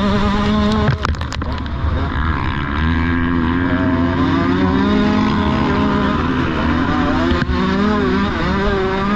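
Dirt bike engine running and revving up and down under load over rough ground, with a few sharp knocks about a second in. The bike is smoking heavily and the engine is failing, shortly before it locks up.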